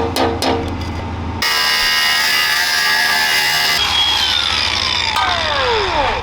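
Angle grinder cutting through a steel bolt for about two and a half seconds, then released, its disc winding down in a falling whine. Before the cut starts, background music with a steady beat.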